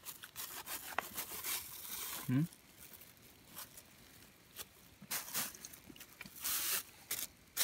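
Scattered rustling and crinkling with light clicks of things being handled, and a short voice sound about two seconds in.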